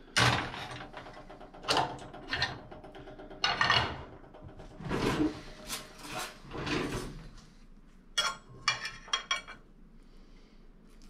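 Kitchen handling noises: a string of separate knocks, scrapes and clatters of cookware and utensils being moved, with a quick run of light clicks about eight seconds in.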